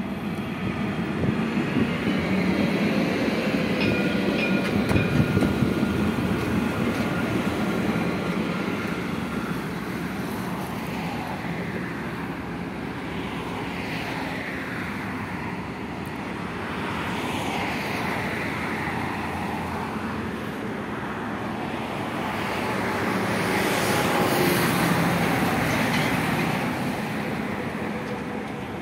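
Dubai Tram, an Alstom Citadis, running past on its track: a steady rolling rumble loudest in the first few seconds, with a thin high wheel squeal for several seconds. The noise eases off and swells again near the end.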